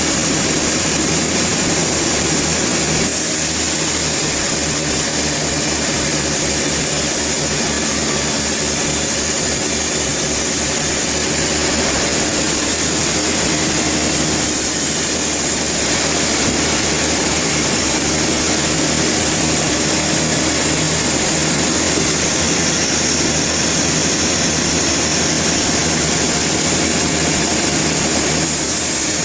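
Sawmill machinery running: a steady engine drone with a loud high hiss above it, shifting slightly a few times.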